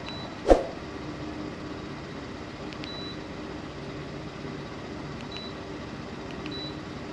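Minn Kota trolling motor's remote control system giving four short, high beeps a few seconds apart as it is tested on the new power plug, over a steady low hum. A single loud knock comes about half a second in.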